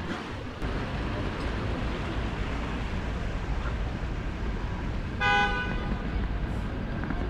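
Steady street traffic noise, with a single short vehicle horn toot about five seconds in.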